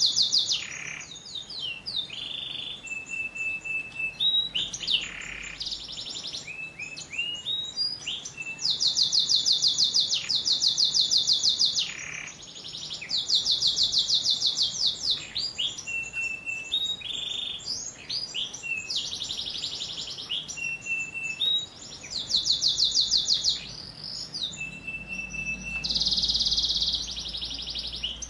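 Domestic canary singing: long runs of rapid, high rolling trills alternating with short steady whistled notes.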